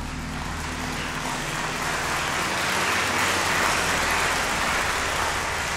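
A broad rushing noise swells to a peak about three seconds in and then fades, over a low steady drone.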